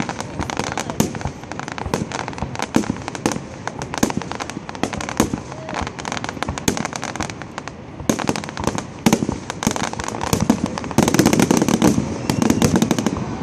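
Fireworks display: aerial shells bursting with repeated sharp bangs and crackling, growing into a denser, louder rapid crackle near the end.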